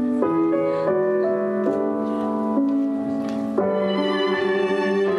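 Slow instrumental background music of piano and violin, with held chords changing about once a second and a fuller sound coming in about three and a half seconds in.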